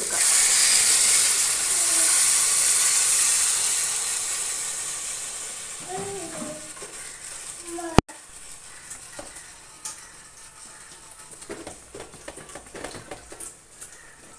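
A whole chicken and potatoes sizzling as they fry in masala and oil in a metal pan, loud at first and fading over several seconds. After a sudden break about eight seconds in come quieter clicks and scrapes of tongs against the pan.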